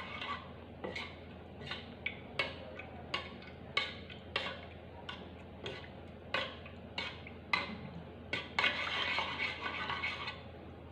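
Metal spoon stirring a thin fish-sauce marinade in a bowl, knocking and scraping against the bowl in irregular clinks, with a quicker run of scraping near the end.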